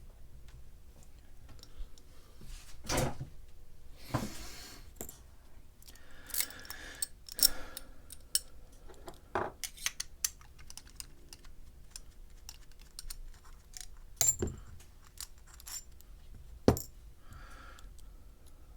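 Mul-T-Lock G47P padlock and metal tools being handled: irregular small metallic clicks and clinks, a few short scrapes, and several louder knocks spread through.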